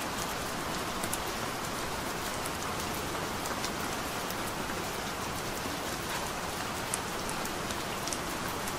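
Steady rain falling, with scattered sharper ticks of single drops.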